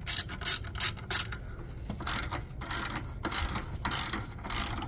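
Socket ratchet wrench clicking in short runs of quick clicks as it loosens the nut on a battery hold-down bracket.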